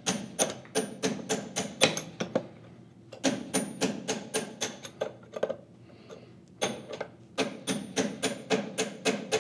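Hammer striking a steel drift against the slotted adapter nut of a Link-Belt 22600 tapered-adapter roller bearing: quick, ringing metal-on-metal taps, about five a second, in three runs with short pauses between. The nut is being driven a full turn to draw the tapered adapter sleeve tight into the bearing's inner ring.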